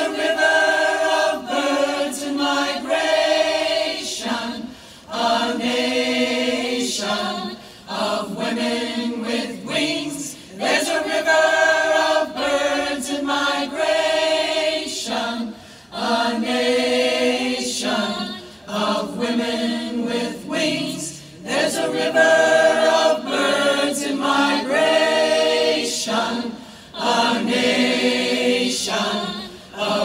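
Choir singing a cappella in repeated phrases of a few seconds each, with short breaks between them.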